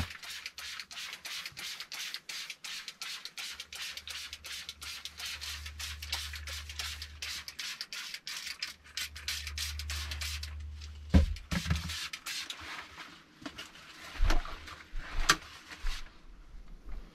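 Hand-pump plastic spray bottle squirting in quick repeated pulls, about four or five hisses a second, for around ten seconds. After that come a few sharp knocks as things are handled.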